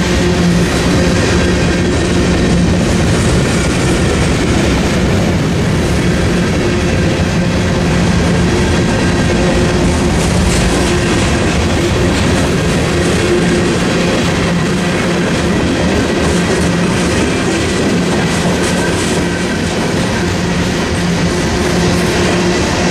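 Freight cars of a long mixed train, covered hoppers, tank cars and lumber-loaded flatcars, rolling steadily past, with wheels clicking over the rail joints and a continuous rumble.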